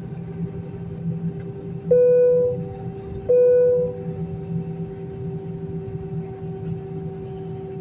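Two clear chime notes of the same pitch, about a second and a half apart, each ringing out and fading within a second, over a steady droning hum.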